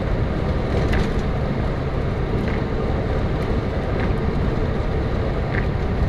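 Steady low road and engine rumble of a car driving, heard from inside the cabin through a dashcam microphone, with faint light ticks about every second and a half.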